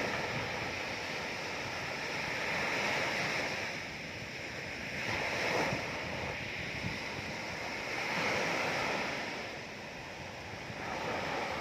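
Ocean waves breaking and washing in: a steady rushing surf that swells and eases every few seconds.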